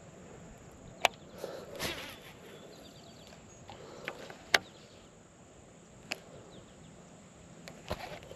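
Handling of a baitcasting rod and reel: a handful of separate sharp clicks and light rustles over faint outdoor background.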